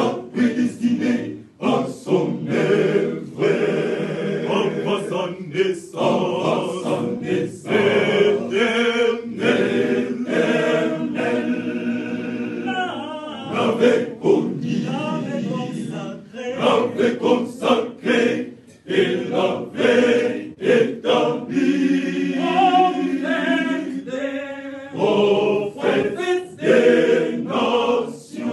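Men's church choir singing a cappella, in phrases with short breaks between them.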